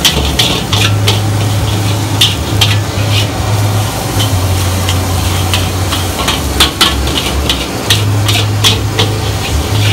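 Nasi goreng being stir-fried in a wok: a metal spatula scrapes and clanks irregularly against the pan over a steady sizzle. A low hum runs underneath, dropping out and returning several times.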